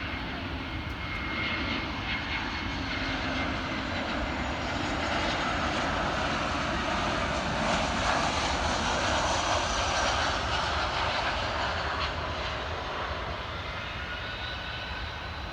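Jet airliner passing close by: engine rush with a faint whine, building to its loudest about two-thirds of the way through and then fading.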